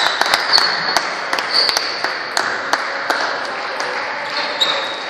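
Table tennis balls clicking off tables and bats around a sports hall, a quick run of light taps, with short squeaks of sports shoes on a wooden floor.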